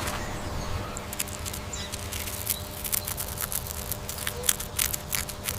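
Rat sounds: a run of quick, irregular clicks over a low background rumble.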